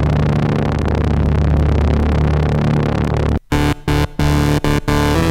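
DIY eurorack modular synthesizer playing a low sustained drone, with the LFO patched into the filter. About three and a half seconds in it cuts off briefly, then breaks into choppy, stuttering notes that change pitch.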